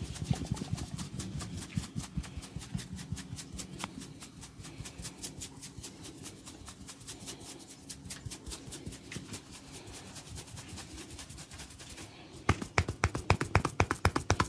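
A barber's hands rapidly tapping and patting a customer's head during a head massage, a fast steady train of strikes. About twelve seconds in, the strikes turn much louder and slightly slower.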